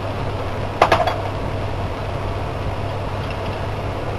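One metallic clink of a spoon against the frying pan about a second in, with a short ring, over a steady hum and hiss.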